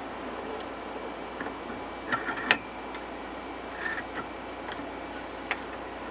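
A few light clicks and taps from handling small parts, the loudest about two and a half seconds in, over a steady hiss.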